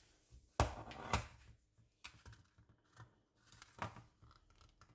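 Kitchen handling noise around a casserole dish: two sharp knocks about half a second apart near the start, then lighter clicks and rustling.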